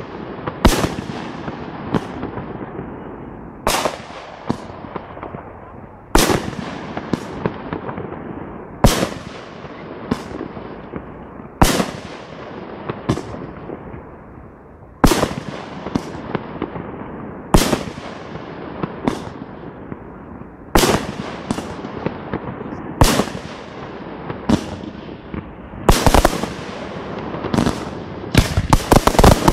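Aerial firework shells bursting in a professional display: a sharp bang every one to two and a half seconds, each followed by a long echoing, crackling tail. The bursts come faster near the end.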